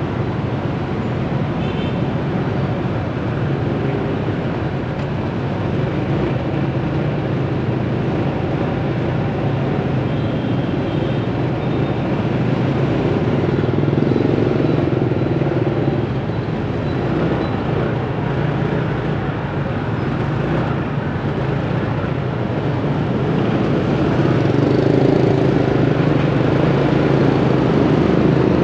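Busy city road traffic: motorbike and car engines running steadily close by, the noise swelling a little now and then.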